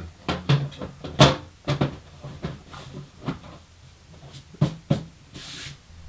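Side panel of a Silverstone RVZ03B mini-ITX PC case being fitted back on: a series of knocks and clicks, the sharpest about a second in, with a brief hiss near the end.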